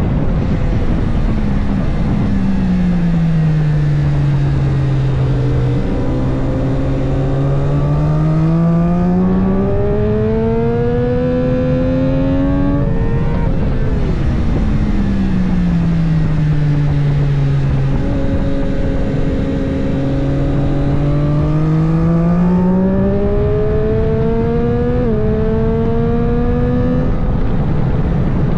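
Triumph 765 Moto2 bike's three-cylinder engine with a Spark exhaust, heard onboard at full race pace. Twice the engine note falls as the bike slows for a corner, then climbs again as it accelerates, with quick dips at each upshift. A constant rush of wind and intake noise runs underneath.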